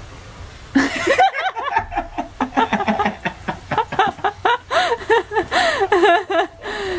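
People laughing hard in quick repeated bursts, starting about a second in and going on almost to the end.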